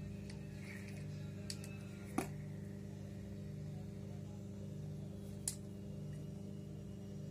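Spinning reel being cranked and handled by hand: a few sharp clicks, the loudest about two seconds in and another about five and a half seconds in, over a steady low hum with a slow regular pulse.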